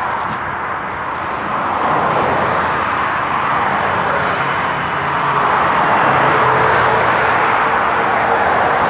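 Boeing 777-300 jet engines at high thrust on departure: a loud, steady roar that dips slightly about a second in and then builds again.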